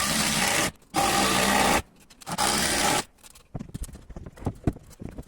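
Power tool running in three bursts of about a second each, starting and stopping abruptly, then scattered knocks and clatter of wood being handled.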